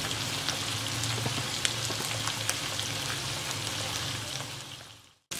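Chicken strips sizzling in garlic butter in a frying pan: a steady crackle with scattered small pops over a low hum, fading out near the end.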